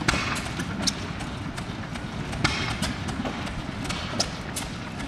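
Farrier's hand tools at a draft horse's hoof: about half a dozen sharp, irregularly spaced metal taps and clicks over a steady low rumble.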